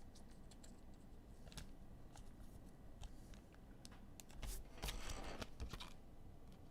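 Soft clicks and rustles of trading cards being handled and slid against one another, with a louder rustle about four and a half to five and a half seconds in.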